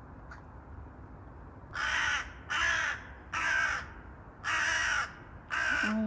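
Crow cawing five times in quick succession, about half a second per caw, starting a couple of seconds in. The calls are harsh and agitated.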